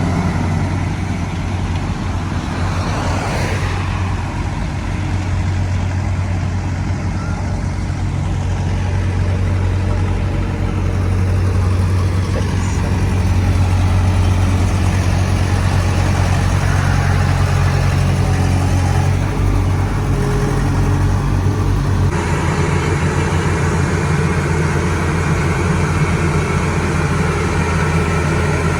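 Engine of heavy road-construction machinery running steadily with a low hum. The sound changes abruptly about three-quarters of the way through.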